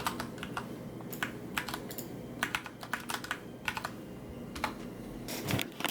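Typing on a computer keyboard: irregular keystrokes in small runs with short pauses between them.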